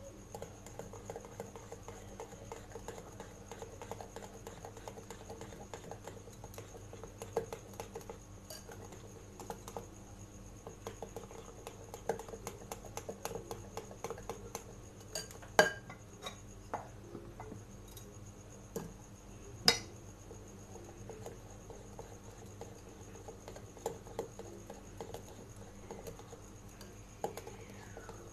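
Spoon stirring chocolate muffin batter in a mixing bowl as dry flour mix is folded in, scraping steadily with frequent light clinks against the bowl. Two sharper knocks stand out about halfway through.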